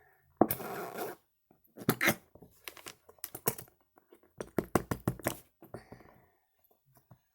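Slime and small plastic slime toys being handled: a crackly rustle about half a second in, then scattered clicks and scrapes with a quick run of them past the middle.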